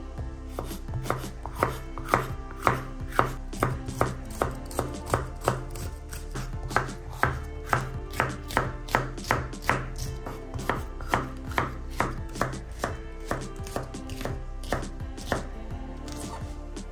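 Kitchen knife chopping food on a board in a steady run of about two cuts a second, stopping shortly before the end. Background music plays underneath.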